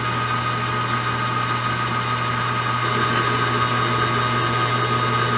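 Steady mechanical hum of running shop machinery, with a constant high whine over it and no change in speed.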